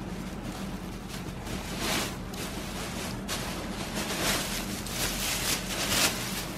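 Thin plastic carrier bag rustling and crinkling as it is untied and pulled open and clothes are drawn out of it, in irregular crackly surges.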